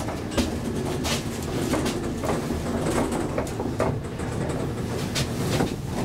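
1972 Kone Asea Graham inclined elevator car travelling along its sloped track: a steady low rumble with frequent irregular rattling knocks and clanks as the car shakes.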